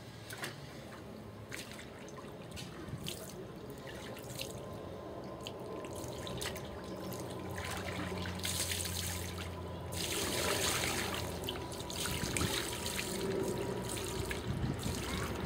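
Water splashing and trickling, with scattered drips at first, then denser, louder splashing from about eight seconds in.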